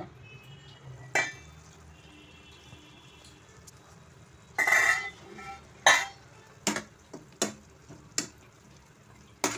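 A metal spatula stirs cooked cluster beans in a kadhai, knocking and scraping against the pan: a clink about a second in, a longer clatter near the middle, then sharp knocks about once a second. A metal pan lid is handled first.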